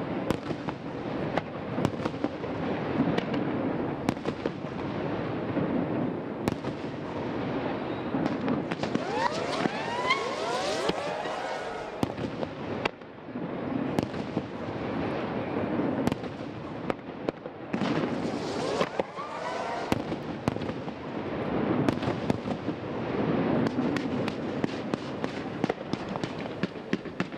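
Aerial fireworks display: a steady run of bangs and crackling, with clusters of rising whistles about nine seconds in and again near nineteen seconds.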